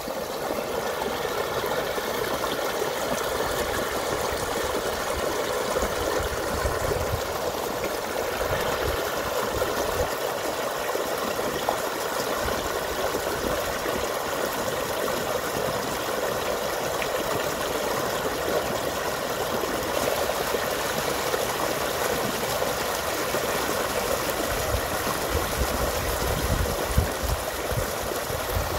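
Small stream of muddy runoff rushing and splashing down little cascades in an eroded dirt gully: a steady rush of water.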